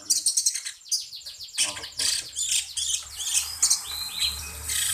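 Cucak cungko songbird singing a rapid run of shrill, high-pitched chirps and trills.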